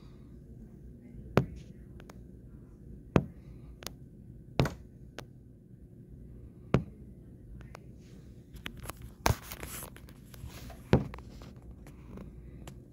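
About seven sharp knocks, spaced irregularly, with a short rustle about ten seconds in.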